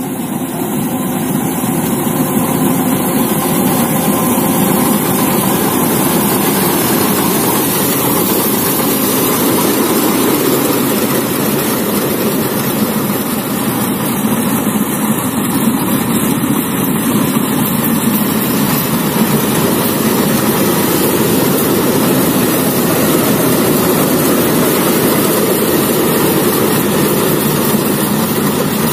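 Crawler rice combine harvester running steadily as it cuts and threshes standing rice: a continuous, loud drone of engine and machinery with no breaks.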